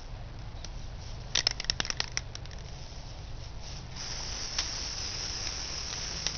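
A quick run of sharp clicks and rattles about a second in, then a steady high hiss from about four seconds in: an aerosol can of Rust-Oleum Hammered spray paint being sprayed.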